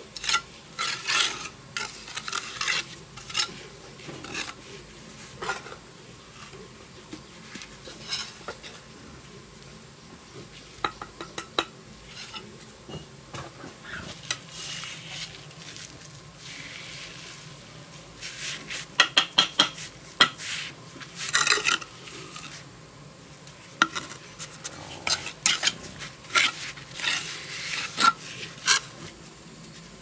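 Steel brick trowel scraping and slapping wet cement mortar on clay bricks, with sharp metallic clinks and taps as bricks are set and the mortar trimmed. The strokes come in irregular clusters, loudest in a run of quick strokes a little past the middle.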